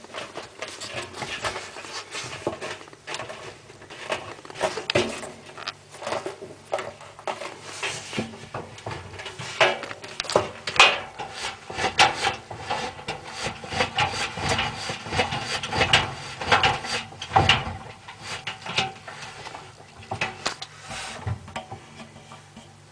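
Hotpoint Aquarius tumble dryer running with its drum knocking and rubbing irregularly over a steady motor hum. The banging comes from the drum slanting back after its bearing shaft broke.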